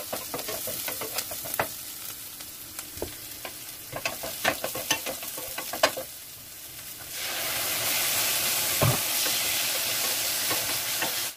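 Food sizzling in a stainless steel pan while a wooden spatula stirs it, knocking and scraping against the pan in quick irregular clicks. About seven seconds in the sizzle gets louder and steadier.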